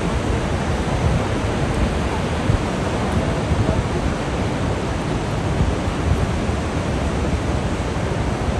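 Niagara Falls' water plunging into the gorge, a steady rushing noise with a deep low rumble.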